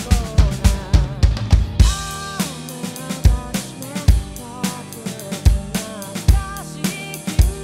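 Drum cover on an electronic drum kit played along with the recorded song: a busy run of bass drum and snare hits for the first two seconds, then a crash about two seconds in and a steadier beat under the song's sung vocal line.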